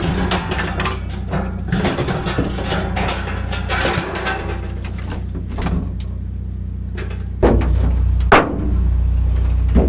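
Sheet steel rattling and scraping as a cut-out section of an old pickup cab's rear wall is worked loose and pulled away. About seven seconds in, a louder, heavier sound takes over, with a sharp knock a second later and another near the end.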